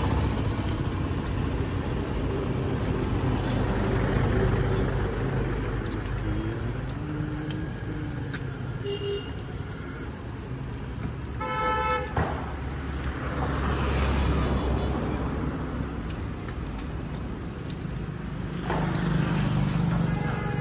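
Road traffic running past with a steady low engine rumble that swells and fades as vehicles go by. A vehicle horn toots once, briefly, a little past halfway.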